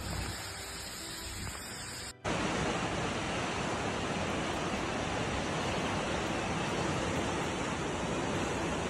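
Steady, even hiss of heavy rain and running floodwater, starting abruptly about two seconds in after a quieter stretch of outdoor noise.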